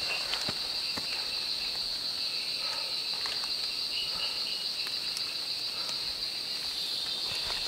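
Steady high-pitched chorus of forest insects, crickets or cicadas, with a few faint footfalls on the trail in the first second.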